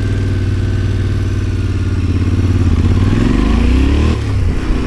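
Yamaha Ténéré 700's parallel-twin engine pulling away. It runs steadily, then revs up for about a second and a half and drops sharply at a gear change about four seconds in.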